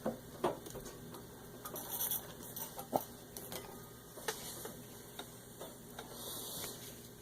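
Scattered light clicks and taps with a few short rustles, from handling the sewing machine and the thick denim once the stitching has stopped.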